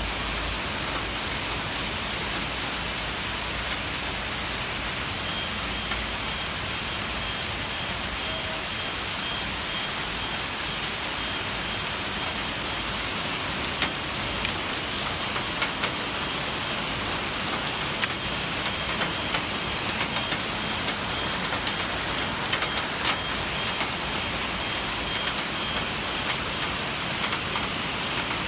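Hail mixed with heavy rain falling in a steady hiss, with sharp ticks of hailstones striking close by that come more often from about halfway through.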